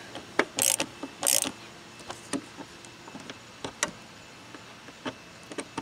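Hand screwdriver tightening a screw on a car's license plate light housing: two short ratcheting bursts in the first second and a half, then a few light clicks and taps from handling the fitting.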